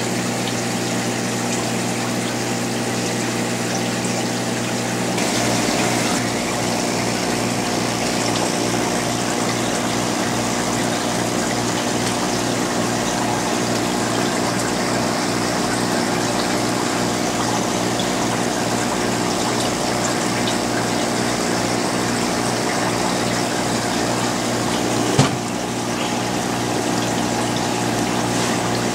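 Aquarium pump humming steadily over a hiss of moving water, with one sharp knock late on.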